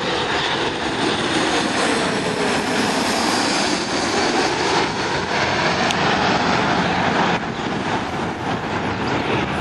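Twin-engine regional jet passing low overhead on landing approach: a steady jet roar with a falling whine as it goes by, easing slightly near the end.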